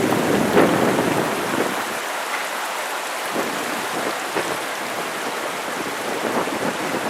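Heavy typhoon rain pouring down. For the first two seconds wind gusts buffet the microphone with a low rumble, then the downpour goes on as a steadier hiss.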